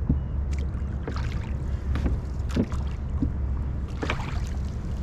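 Oars rowing a small wooden rowboat: the oars knock in their oarlocks and the blades dip and splash with each stroke, over a steady low rumble.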